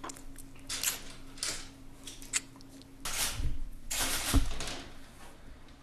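Typewriter mechanism clacking: a few sharp separate strikes, then two longer rattling strokes, each ending in a low thud.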